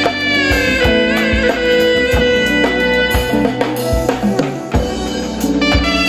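Wooden folk wind instrument with a flared bell playing a loud, reedy Turkish folk melody with wavering, ornamented notes, over steady drum-kit beats. The melody shifts to a new passage about five and a half seconds in.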